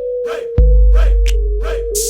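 Intro music with a hip hop beat: regular drum hits about twice a second over a held synth line, with a heavy bass coming in about half a second in.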